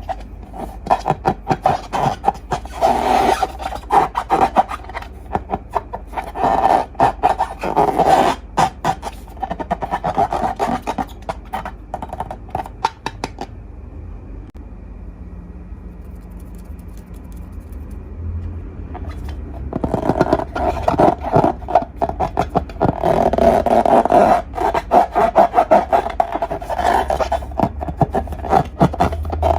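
Glossy slime being squished and stretched by hand: dense runs of sticky clicks and crackles, with a quieter pause of several seconds in the middle.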